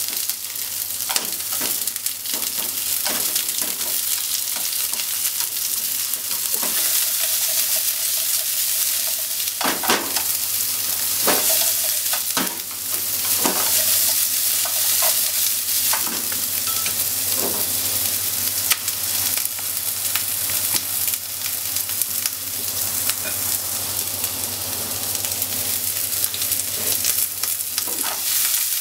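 Sliced onions sizzling as they fry in a non-stick frying pan, with a steady hiss and frequent scrapes and taps of a wooden spatula stirring them against the pan.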